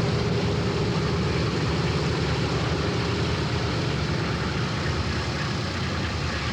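Piston-engined propeller aircraft droning past with a steady, even engine note that eases slightly toward the end.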